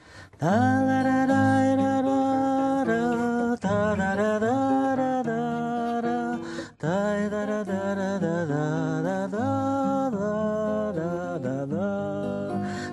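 A man humming a slow wordless melody, holding long notes that slide up into pitch, over a seven-string guitar. This is the introduction to a bard song.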